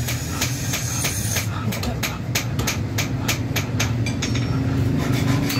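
Quick, evenly spaced chopping strokes of a hand blade hewing a wooden hammer handle on a wooden stump block, about three strokes a second, over a steady low hum.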